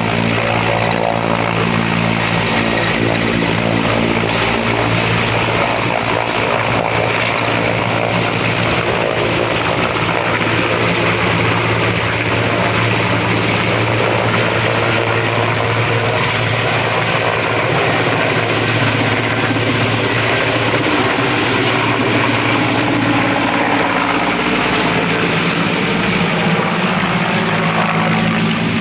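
Helicopter running steadily: a continuous rotor-and-engine drone with a low steady hum that fades partway through and comes back strongly near the end.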